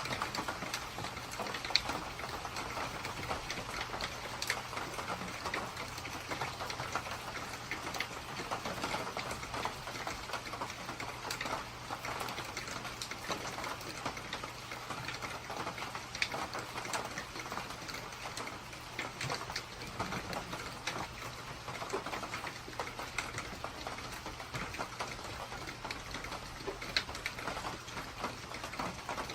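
Rain falling steadily, a dense patter of many small drops, over a faint steady low hum.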